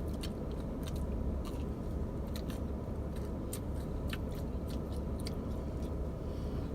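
Close-up chewing and biting into pizza: irregular wet mouth clicks and smacks.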